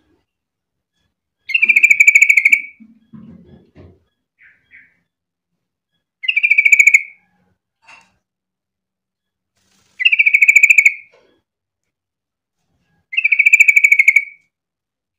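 Yellow-vented bulbul (trucukan) calling: four separate bubbly, rapidly pulsed chattering calls of about a second each, spaced a few seconds apart.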